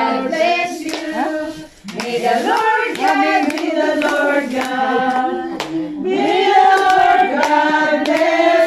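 A small group of people singing together and clapping along, with a brief pause between phrases about two seconds in.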